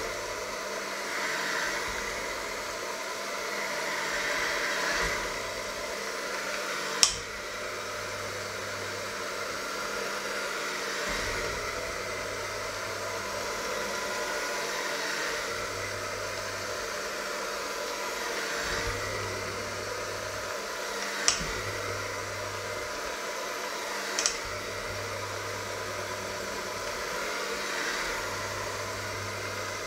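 Handheld electric mixer running steadily, its beaters working a thick mixture in a stainless steel bowl. There are three sharp knocks, one about a quarter of the way in and two close together later on.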